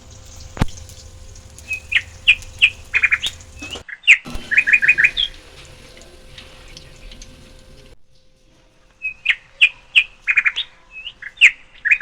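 Small bird chirping in quick runs of several high, sharp notes, the same short phrase coming back again and again. A single sharp click about half a second in.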